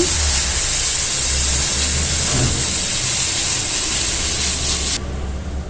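Hot oil sizzling in a karai as ground mustard-seed masala paste fries in it, a steady loud hiss that cuts off suddenly about five seconds in.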